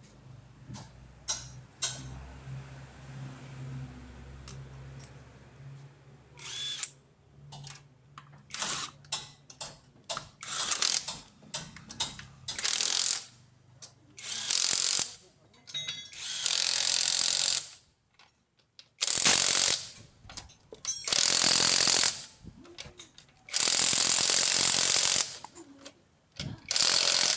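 Hand ratchet wrench clicking in repeated strokes, each stroke about a second long, the later strokes longer and louder. A low steady hum sits underneath during the first several seconds.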